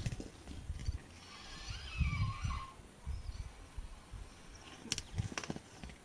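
Lionesses feeding on a wildebeest carcass: low rumbling sounds come and go, the loudest about two seconds in, with a short wavering call at the same moment and a few sharp clicks about five seconds in.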